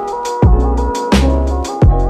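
Background music: an electronic beat with deep, pitch-dropping bass kicks, sharp drum hits and sustained synth notes.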